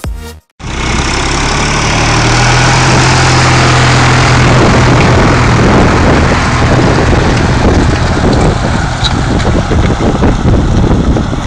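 Steyr 370 Kompakt tractor's diesel engine running steadily under load, pulling a three-furrow plough. Its engine note rises slightly about two seconds in.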